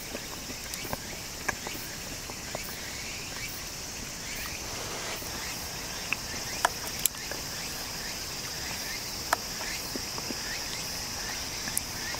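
Steady high chirring of insects, with a few sharp clicks of a metal fork against a metal sierra cup.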